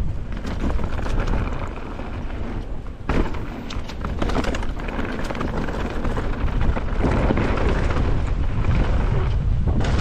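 Mountain bike riding down a rough downhill trail: wind buffets the microphone with a heavy low rumble, while the tyres rattle and click over rocks and roots.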